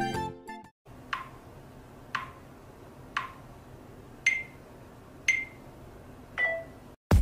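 Music cutting off in the first second, then six short electronic ticks about a second apart, the first three lower and the last three higher: a smartphone camera's self-timer counting down.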